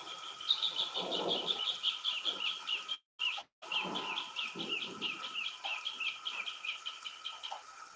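A bird calling a long, fast run of short, high, falling notes, about six a second, with a brief break about three seconds in. Low gusts of wind buffet the microphone underneath.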